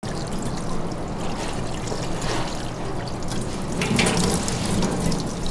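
Water from a kitchen sink's spray head running over a suckling pig carcass as it is rinsed by hand, splashing into a stainless steel sink. The flow is steady, with a few louder splashes about four seconds in as the carcass is turned.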